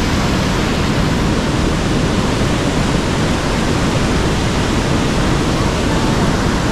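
Fast-flowing river water rushing through a gorge, a loud, steady, even noise.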